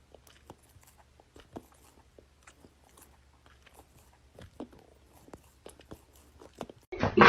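Soft, irregular crunching and clicking of an animal chewing food, faint and close.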